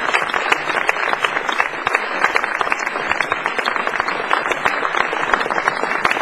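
An audience applauding: many hands clapping in a dense, even patter.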